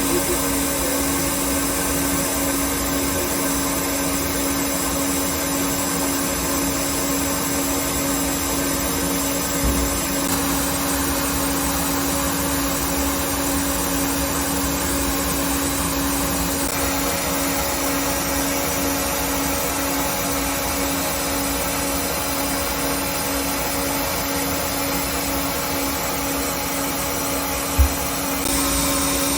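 Citizen A20 CNC Swiss-type lathe running: a steady machine hum with a constant tone, its character shifting slightly a few times. A single short low thump comes near the end.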